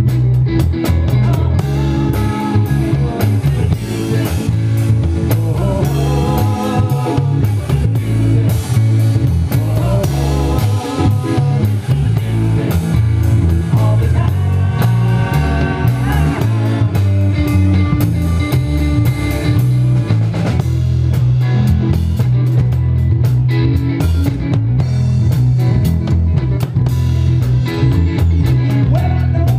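Live rock band playing loudly: electric bass, electric guitar and drum kit, heard from the stage close behind the drums.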